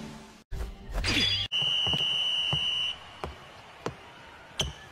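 A short rising swoosh, then a referee's whistle blown once and held for about a second and a half, signalling a substitution. Then sneaker footsteps on a hardwood gym floor, about one step every two-thirds of a second, the last with a slight squeak.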